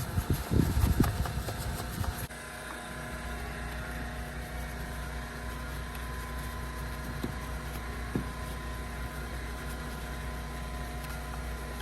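A couple of seconds of irregular thumps and rustling, which stop abruptly, then a steady mechanical hum of a running motor with several constant tones.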